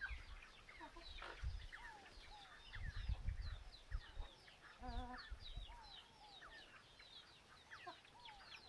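Chickens clucking and calling while feeding, over many short, high chirps, with one wavering call about five seconds in. Dull low bumps come now and then.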